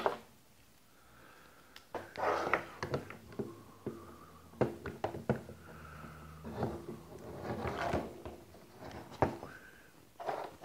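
Hard plastic parts clicking, knocking and scraping by hand as a forward-facing sonar transducer is fitted onto its bracket on a PVC pole mount: scattered irregular clicks and taps, with short scrapes between them.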